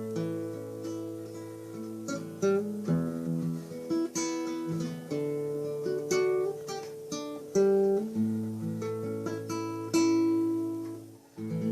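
Solo acoustic guitar played fingerstyle: a plucked melody over ringing bass notes, with a short break near the end before the playing resumes.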